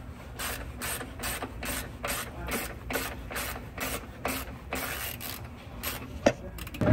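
Hand ratchet clicking in short back-and-forth strokes, about two or three clicks a second, as it turns the clamp on a truck's charge-air-cooler hose. A sharper knock comes near the end.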